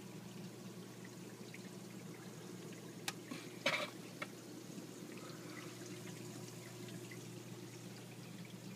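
Water steadily pouring and splashing down through the media chambers of an aquarium sump filter. A couple of short, sharp clicks about three and a half seconds in.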